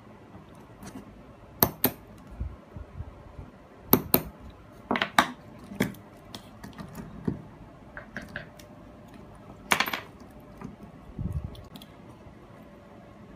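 Stainless steel watch bracelet links and a pin-pushing tool clinking and clicking as the bracelet is handled and its pins are pushed out on a plastic holder block. There are several sharp metallic clicks, the loudest about 2, 4 and 10 seconds in, between softer handling noises.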